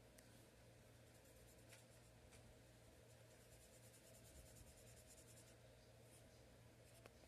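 Faint strokes of a marker drawing and lettering on a whiteboard, in quick repeated short strokes, over a low steady hum.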